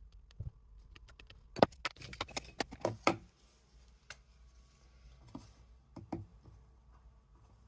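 A quick flurry of light taps and clicks, then a few single taps, from inking a stamp and pressing it onto cardstock.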